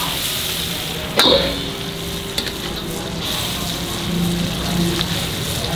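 Mutton and chicken karahi sizzling hard in black karahi woks over high heat, stirred with a metal spatula that scrapes and clicks against the pan, with one louder scrape about a second in.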